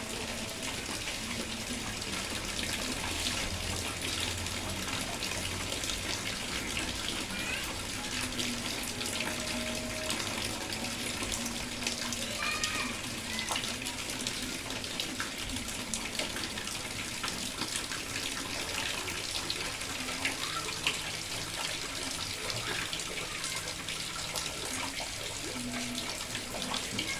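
Steady heavy rain: an even hiss of falling water, thick with the ticks of individual drops.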